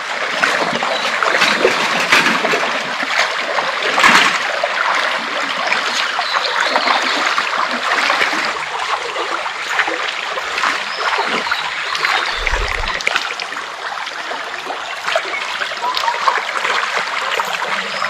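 Stream water flowing and splashing steadily, a dense, even rush with many small splashes.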